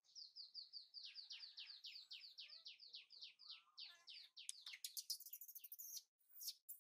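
Baby macaque crying in distress: a fast run of short, high squeals, each falling in pitch, about four or five a second. After about four and a half seconds they turn into harsher, noisier shrieks. The title puts the cry down to ant bites.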